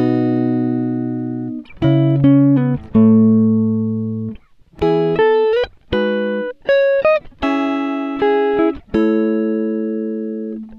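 Background music: a guitar plays a slow run of plucked chords, each left to ring and fade, with a few notes sliding up in pitch.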